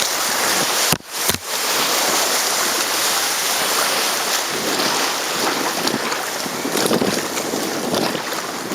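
River water rushing and splashing around a canoe running down a small river, with wind buffeting the microphone. The level dips briefly about a second in.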